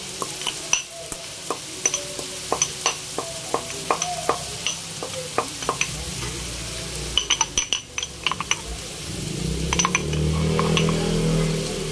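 Marble mortar and pestle crushing whole black peppercorns: a run of sharp stone-on-stone taps, then a louder grinding rub about nine seconds in. Long beans sizzle steadily in the wok underneath.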